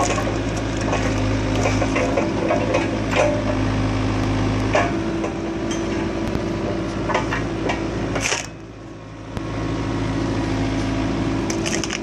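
Excavator engine and hydraulics running steadily while a hydraulic log-splitter attachment forces wood apart, with scattered sharp cracks and the clatter of splitting wood. There is a brief lull about eight seconds in.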